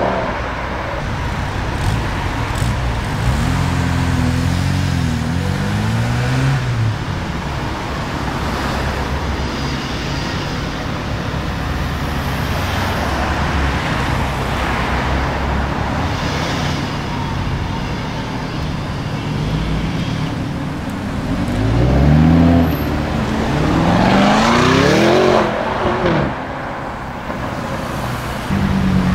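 Car engines running as cars pull away one after another, with a steady low rumble. Twice an engine revs up through the gears, the second time louder, about three quarters of the way in.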